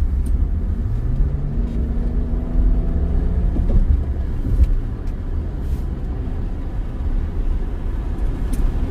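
Car engine and road rumble heard from inside a moving car. About a second in, the engine note rises for a few seconds as the car speeds up, then settles back into the steady drone.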